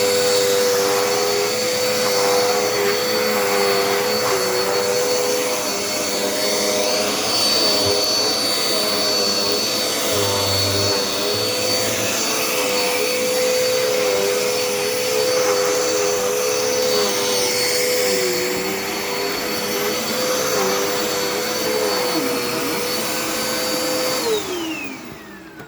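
Dirt Devil Endura Reach upright vacuum cleaner running with a steady motor whine. Near the end it is switched off, and the whine falls in pitch and fades as the motor spins down.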